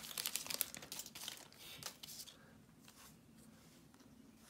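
Crinkling of a foil Pokémon booster pack wrapper as the cards are drawn out and handled, a run of small crackles that stops about two seconds in.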